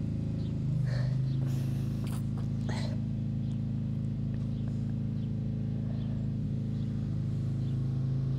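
A steady low mechanical hum, such as a motor running, that shifts slightly in pitch about a second in, with a couple of brief rustles in the first few seconds.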